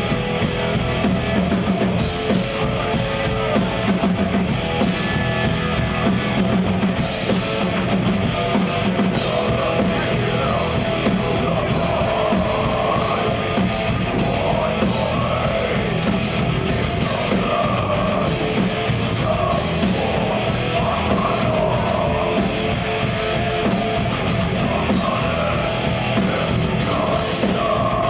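A progressive death metal band playing live, with distorted guitars and a drum kit in a dense, continuous wall of sound. A higher wavering melodic line rises above the band from about ten seconds in.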